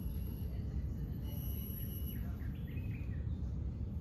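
Rainforest ambience: a steady high insect drone with a few short falling bird chirps about two seconds in, over a heavy low rumble.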